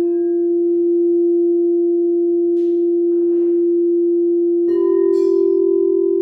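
Singing bowls ringing: a steady, sustained low tone with a few faint higher overtones, then about three-quarters of the way through another bowl is struck and a slightly higher tone joins and rings on. Two soft rustles are heard in between.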